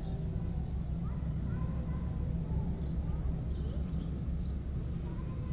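Outdoor ambience: a steady low rumble, with faint short bird chirps in the middle and faint distant voices.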